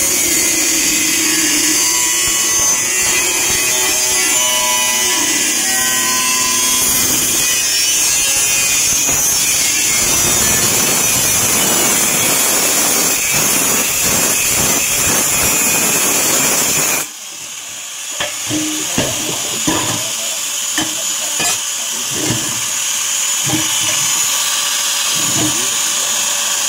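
A power tool runs steadily under load, cutting into the steel of a cable tray, then stops suddenly about two-thirds of the way in. Scattered short knocks and taps follow.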